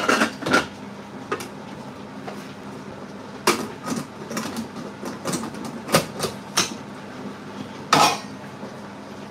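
Stainless-steel pressure cooker being handled: its lid set on and locked into place and the pot lifted, giving a string of short metallic clanks and knocks. The sharpest clank comes near the end as the pot is picked up.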